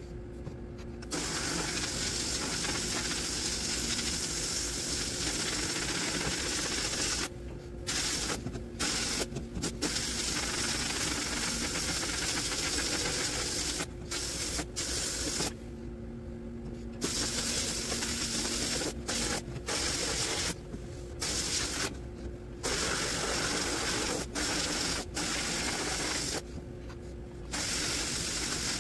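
Sandblasting cabinet's blast nozzle firing abrasive onto rusted reel-mower parts: a loud steady hiss of air and grit that starts about a second in and stops and restarts about ten times as the trigger is released and squeezed again. A low steady hum carries on through the gaps.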